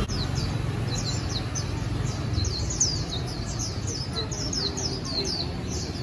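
Caged white-eyes chirping: a quick, continuous run of short, high, downward-slurred calls, several a second, over a low street rumble.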